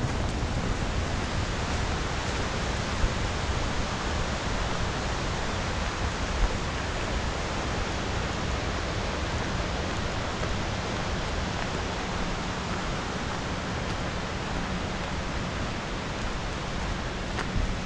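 Steady rushing roar of a waterfall, an even hiss of falling water with no breaks. Two faint brief knocks come a few seconds apart.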